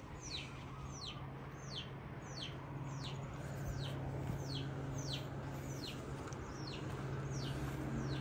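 A bird calling: a high, falling chirp repeated evenly about twice a second, over a steady low hum.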